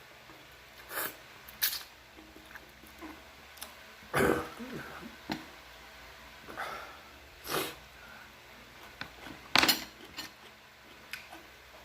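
A person eating spicy noodles and kimchi: about five short, noisy eating sounds a couple of seconds apart, the loudest about four seconds in and near the end, with quiet between.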